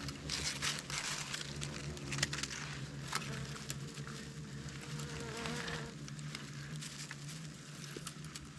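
Hornets buzzing in a steady low drone, with scattered clicks and crackles over it.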